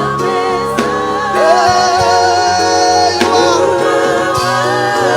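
Live gospel worship music: a band playing sustained chords and drums under singing voices, part of a worship chorus.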